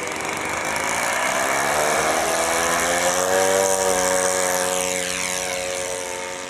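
Radio-controlled model floatplane's engine and propeller opening up for take-off from the water: the pitch rises over the first few seconds, then holds steady as it lifts off and climbs, growing fainter near the end.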